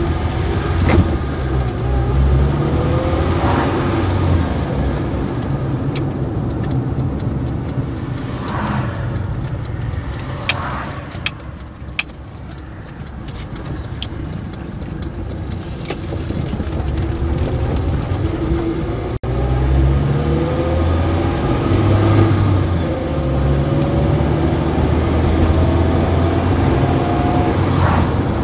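A vehicle engine running, its pitch rising several times as it speeds up.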